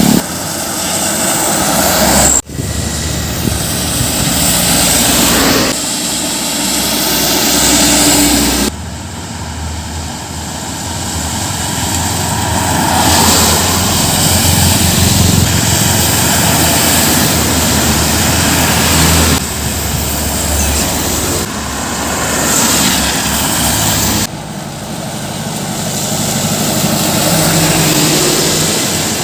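Heavy trucks and buses driving past on a road: diesel engines and tyre noise. It comes as a string of short clips that cut off abruptly every few seconds.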